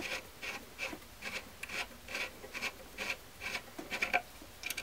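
Muzzle device being spun off an AR-15 barrel's threads by hand, giving a soft rasping of metal threads and fingers on metal in a steady rhythm of about two to three strokes a second.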